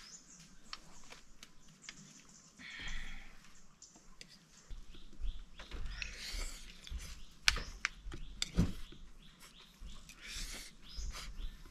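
Eating sounds: a spoon clicking against a plate and bouts of chewing, with one sharper click and a low thud about two-thirds of the way in.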